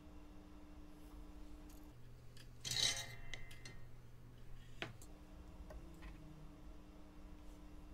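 Fine metal tweezers scraping and clicking against a small surface-mount chip and its breakout board as they let go of it. A short scrape comes about three seconds in, with a few light ticks around it, over a faint steady hum.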